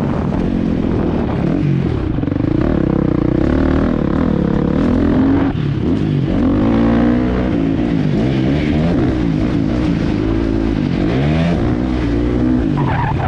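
A vehicle engine under way, revving up and down over and over, its pitch rising and falling every second or two.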